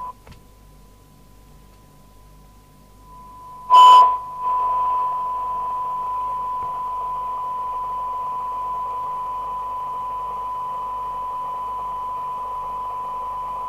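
Rotel RVC240 FM CB receiver reproducing a steady 1 kHz test tone from a weak signal-generator signal, with hiss around it, as its sensitivity is measured near 12 dB SINAD. The tone is faint at first; about four seconds in there is a brief loud burst, after which the tone and hiss carry on louder.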